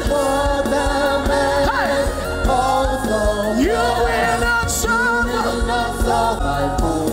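Gospel worship song: a voice sings long held and sliding notes over sustained backing chords and a steady low beat.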